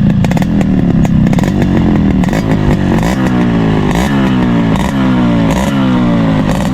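Yamaha RX100's two-stroke single-cylinder engine running through its stock muffler, a very mild exhaust note. It runs steadily at first, then from about halfway in the throttle is blipped about once a second, the revs falling away after each blip.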